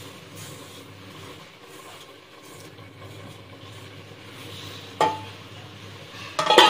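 Dry Maggi instant noodle cakes being crumbled by hand into a pan of boiling masala water, over a low steady simmer. A sharp click comes about five seconds in, and a louder rattle near the end.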